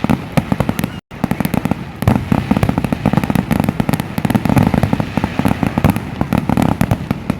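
Fireworks going off in a dense, rapid run of crackling pops, with the sound cutting out for a moment about a second in.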